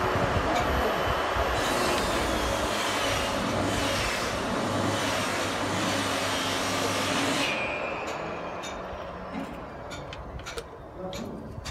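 Loud, steady rumble of a passing vehicle with a low hum, fading away from about seven seconds in; a few sharp clicks follow near the end.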